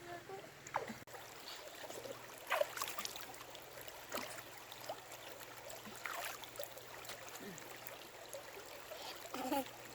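Water splashing and trickling in short, irregular splashes, as of hands scooping water to wash a face.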